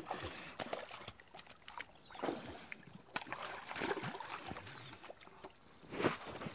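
Splashing and sloshing of shallow water as a dog wades and tugs at a beaver, in irregular bursts, the strongest about two, four and six seconds in.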